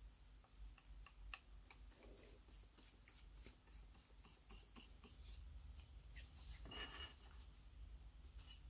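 Faint scraping and tapping of a wooden stick mixing paste on a thin metal plate, with a longer scrape about seven seconds in.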